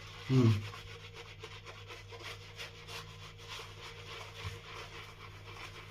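Shaving brush being swirled through Palmolive shave cream in a lathering bowl, a continuous scratchy, brushy rubbing made of many quick strokes as the lather is rebuilt between passes. A short low knock or hum sounds about a third of a second in.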